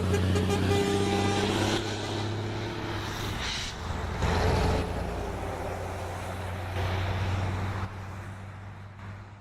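Truck air horn sounding and cutting off about two seconds in, over the low, steady running of a truck engine. Two short bursts of hissing noise follow around the middle, and the engine sound fades out at the end.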